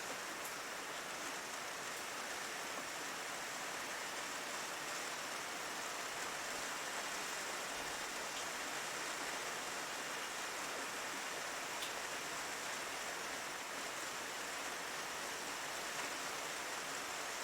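Steady rain falling, an even hiss with faint occasional drop ticks.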